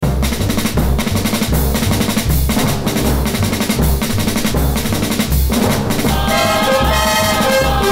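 Instrumental intro of a 1955 rock-and-roll pop record: a steady drum beat with a thudding bass pulse and snare strokes. A pitched melody line joins about six seconds in.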